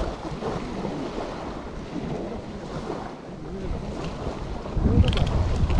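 Wind buffeting the microphone over small waves lapping a pebble shore; a gust makes it louder and rumblier near the end.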